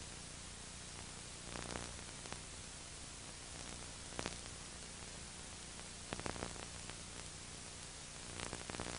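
Steady hiss and low hum of an old analog videotape transfer with no programme sound, broken by a few faint crackles and clicks.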